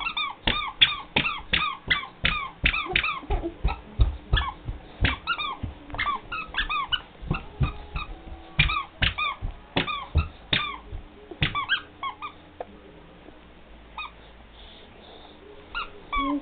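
Child's squeaker shoe squeaking with each step, a short high squeak about two or three times a second over soft footfalls. The squeaking stops about twelve seconds in, with a couple more squeaks near the end.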